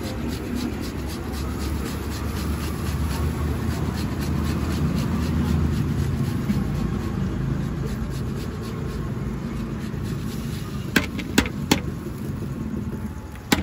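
A tomato being grated by hand on a perforated steel grater over an iron griddle: quick, even scraping strokes over a steady low rumble. About eleven seconds in come three sharp knocks in quick succession.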